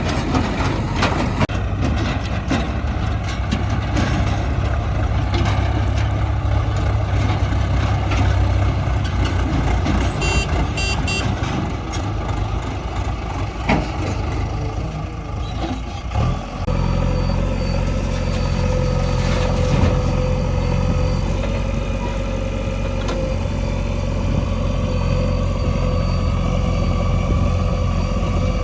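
Heavy diesel earth-moving machinery running steadily, a backhoe loader and dump truck at work, with scattered knocks in the first half. A short run of reversing-alarm beeps comes about ten seconds in, and about sixteen seconds in the engine note changes to a smoother, steadier one.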